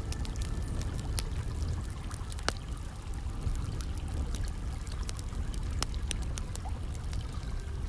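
Campfire crackling: burning firewood giving off scattered sharp pops and cracks over a low, steady rumble.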